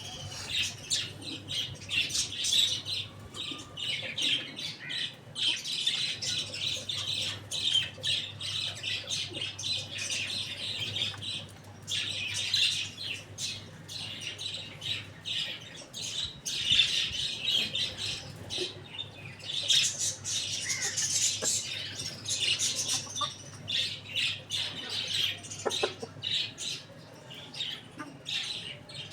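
A flock of small birds chirping and squawking non-stop in dense, overlapping bursts, with a low steady hum underneath.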